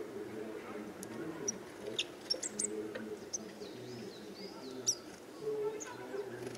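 Small songbirds calling: short high chirps and a few sharp ticks, with a brief run of curved, whistled calls about four seconds in.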